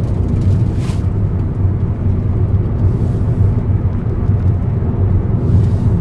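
Steady low rumble of a moving car heard from inside the cabin: engine and road noise.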